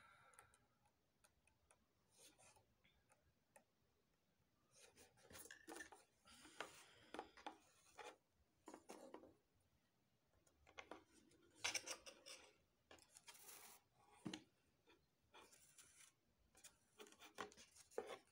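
Faint scratchy rustling of hand sewing: needle and thread drawn through the stiff mesh of a moulded fascinator base to stitch on a black headband, in short strokes with pauses between.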